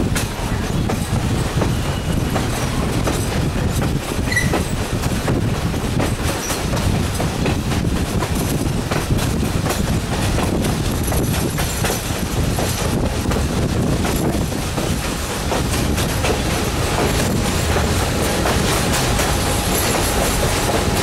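Passenger coach rolling along the track: a steady rumble of steel wheels on rail with the clickety-clack of rail joints, heard through an open coach window. Now and then a thin, high wheel squeal rises over it, mainly in the middle and near the end.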